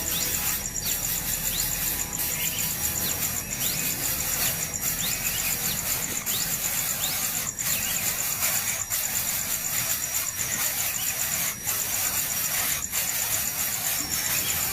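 Nestling birds squealing: short, thin, rising squeaks repeated about once a second over a steady high hiss.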